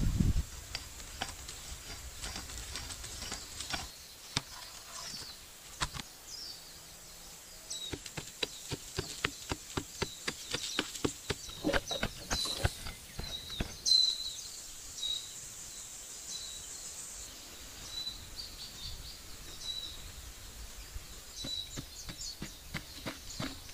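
Small birds chirping repeatedly in the woods, over a faint steady high hum that stops about two-thirds of the way through. A quick run of light clicks and knocks comes in the middle, from something being handled.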